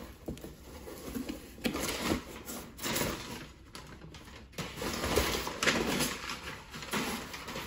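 Cardboard parcel being handled and opened: irregular rustling and scraping with scattered clicks and knocks.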